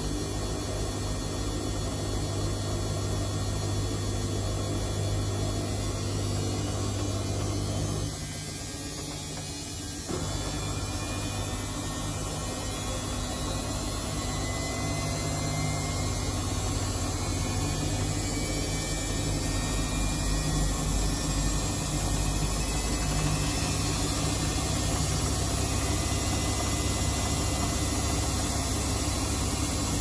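Samsung front-loading washing machine in the wash phase, its drum motor humming steadily as the drum tumbles the load through water and suds. The motor stops for about two seconds, about eight seconds in, then starts turning the drum again.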